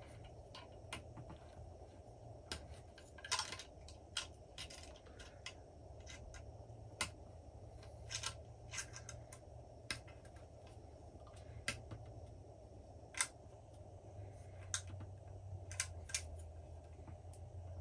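Allen key turning a threaded rear sling stud into a wooden rifle stock by hand: scattered light metallic clicks, irregular, about one a second.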